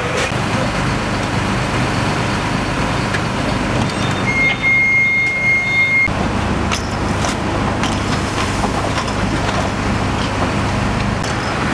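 Fire engines running at a fire scene in a steady drone. A high electronic tone is held for about two seconds near the middle, and a few knocks follow it.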